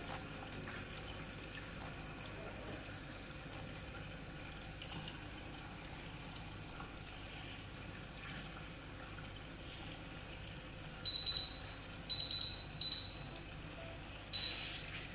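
Teka induction hob beeping: short, high, single-pitch beeps about a second apart over the last four seconds, the later ones as its touch controls are pressed to turn the heat down to minimum. Underneath is the faint steady bubbling of the covered stainless pot steaming salmon.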